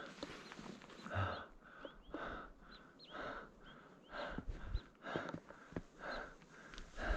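A climber breathing hard, about one breath a second, with faint steps and small clicks between the breaths.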